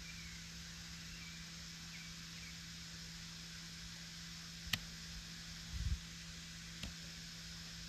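Steady hiss and a low hum with a few faint bird chirps in the first seconds, then a sharp click a little past the middle, a low thump about a second later, and a fainter click near the end.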